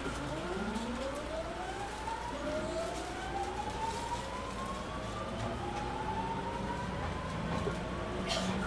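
Mitsubishi GTO-thyristor VVVF inverter of a JR East 209 series 3000 motor car whining in several rising tones as the train accelerates, heard from inside the car. The pitch climbs steadily, with a fresh set of rising tones starting about two seconds in, over a steady low hum of motors and wheels on rail.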